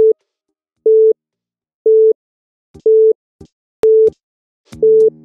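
Countdown timer beeping once a second, each beep a short steady electronic tone. Music comes in under the beeps near the end.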